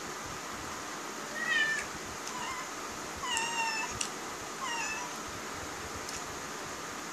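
Domestic cat meowing several times: short calls, the longest about halfway.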